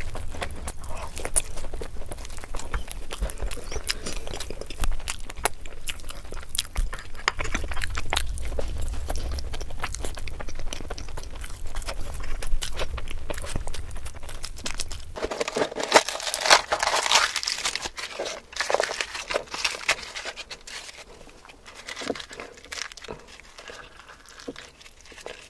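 Close-miked mouth sounds of eating luchi (soft deep-fried flatbread) with dum aloo potato curry: a dense run of wet chewing, biting and lip smacks. A low background hum stops about halfway through.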